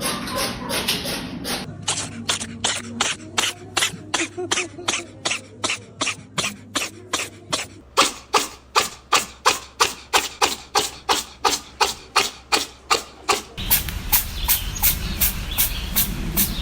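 A steady rhythmic run of sharp hits, about three a second. A deep rumble joins underneath about fourteen seconds in.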